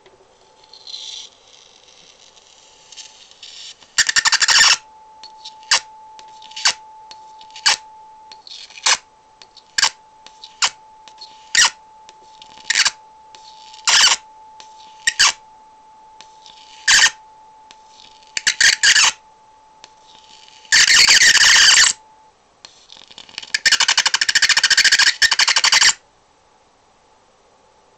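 High-voltage arc from a ZVS-driven homemade transformer crackling in short sharp bursts, roughly one a second. Near the end come two longer, denser bursts of a second or more as the arc is drawn out into a flame. A thin steady whine runs underneath.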